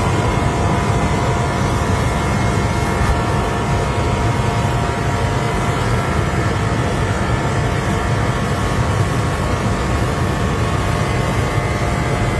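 Substation power transformer humming steadily, with several unchanging high tones over a dense low drone and rushing noise.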